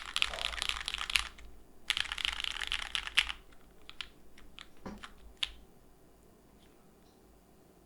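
Mechanical keyboard typing on a Monokei Kei R2 with lubed SP-Star Sacramento switches on an O-ring-mounted aluminum full plate and GMK keycaps. There are two quick rolls across the home-row keys, asdfghjkl, then a few single keystrokes up to about five seconds in. The switches have a deep sound.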